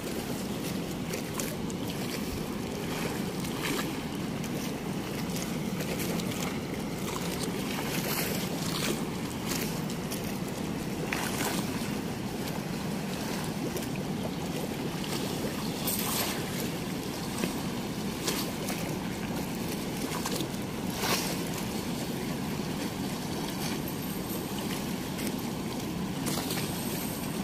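Steady rush of fast-flowing river water pouring through a weir's gates, with a few faint clicks and taps now and then.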